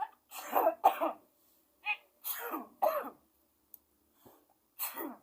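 A person sneezing loudly and theatrically, about six short bursts in quick clusters with pauses between.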